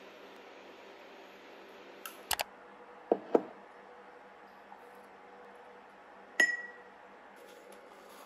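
Tableware handled on a table: a few light clicks, two soft knocks, then one clink about six seconds in that rings briefly like ceramic or glass, over a steady low room hum. Faint crinkling of a plastic pouch near the end.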